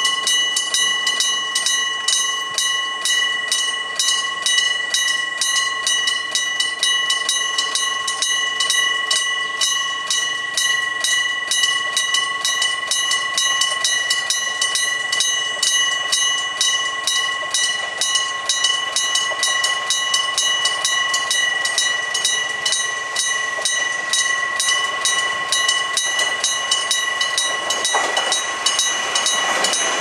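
Electric-bell level-crossing alarm (the old Showa-era bell type) ringing continuously with rapid, even hammer strokes on its gong: the warning that a train is approaching. Near the end a diesel railcar comes in underneath it, rising over the last couple of seconds.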